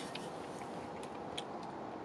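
Room tone with a few faint, light clicks of eating utensils against dishes.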